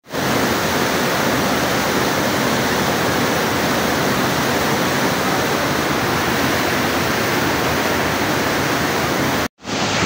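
Waterfall pouring into a rock pool: a steady rush of falling water. The sound cuts out for a moment near the end.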